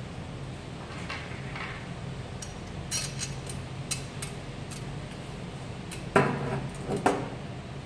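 Painted steel parts of a satellite-dish mount being handled: a few light metallic clicks, then two louder clanks about a second apart near the end, each ringing briefly.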